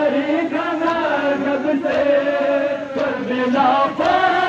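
A noha, a Shia mourning lament, chanted in one continuous melodic line by a male voice over a horn loudspeaker, with a faint beat about once a second under it.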